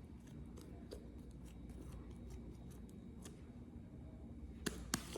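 Slime being handled and squished, making faint scattered clicks and pops, with two sharper clicks near the end.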